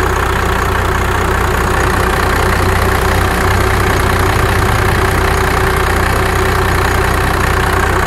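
Dodge Ram's 5.9-litre Cummins straight-six diesel idling steadily, heard close up under the open hood.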